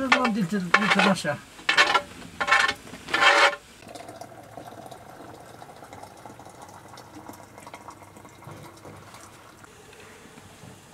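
A voice speaking for the first few seconds, then a quiet, steady sound of liquid boiling in a cooking pot.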